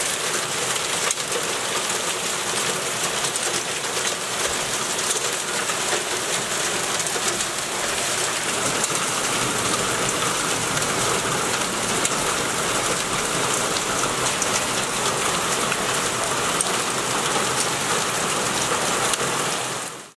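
Hail mixed with heavy rain falling on paving and grass: a dense, steady patter of countless small impacts. It stops abruptly near the end.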